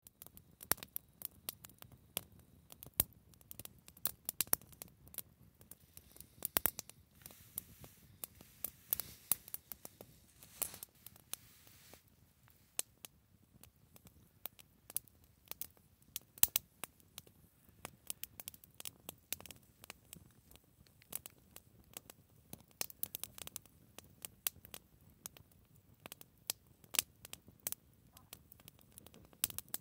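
Small wood fire of dry twigs and kindling crackling, with irregular sharp snaps and pops, sometimes several in quick succession.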